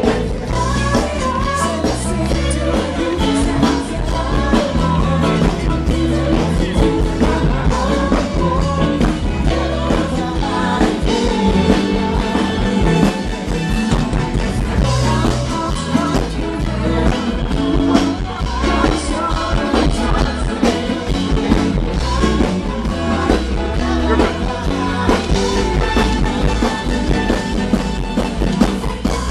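Rock music with a singer over a full band with a steady beat.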